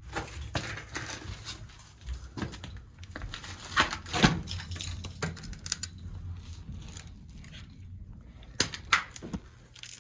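Irregular scrapes, knocks and rustling of a person crawling and squeezing through a cramped crawl space, with louder bumps about four seconds in and again near the end.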